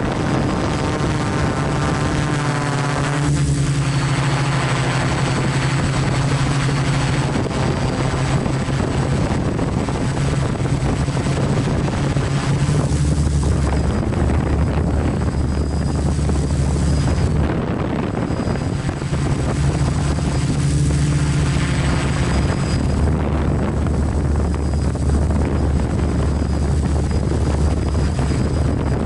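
Quadcopter's electric motors and propellers buzzing steadily, picked up by the camera on board. The motor pitch wavers and shifts several times as the motor speed changes.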